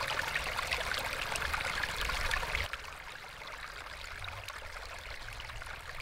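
A small mountain stream trickling and babbling through grass. About halfway through it becomes quieter and stays steady.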